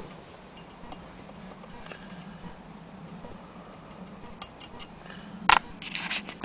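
Willcox & Gibbs hand-crank sewing machine being turned by its crank wheel, the mechanism ticking softly. A sharp click about five and a half seconds in, then rustling handling noise near the end.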